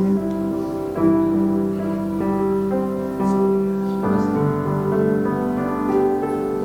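Keyboard playing slow, held chords, a soft instrumental hymn accompaniment with the chord changing every second or so.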